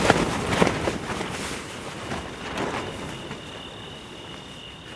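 Wind gusting against a tent in a windstorm, the tent fabric flapping and rustling with a few sharp snaps near the start, then easing off. A faint steady high tone runs underneath in the second half.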